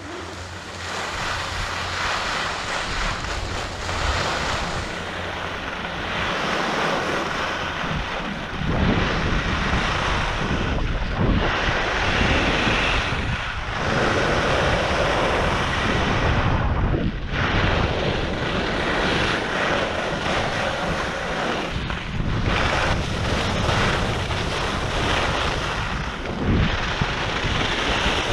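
Wind rushing and buffeting over an action camera's microphone on a moving skier, with the hiss of skis on groomed snow. It grows louder about eight seconds in and dips briefly several times.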